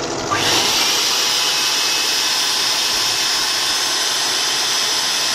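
Homemade turbocharger-based turbojet spinning on its starter: a steady rushing hiss of air with a faint high whine, which steps up suddenly about half a second in and then holds steady.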